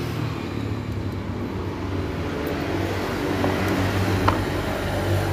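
A motor vehicle engine running steadily with a low, even hum, getting slightly louder, with a few light clicks as the cylinder head and other metal engine parts are handled.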